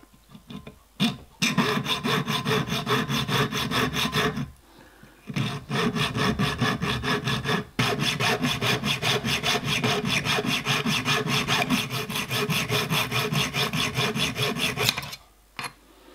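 Junior hacksaw cutting a thin metal strip clamped in a bench vice, trimming it to length: quick, even back-and-forth strokes. The sawing pauses briefly about four and a half seconds in and stops shortly before the end.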